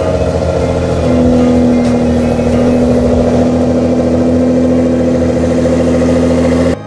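Nissan R35 GT-R's VR38DETT twin-turbo V6, breathing through a Tomei Expreme Ti full titanium exhaust, idling steadily just after a cold start. The sound cuts off suddenly near the end.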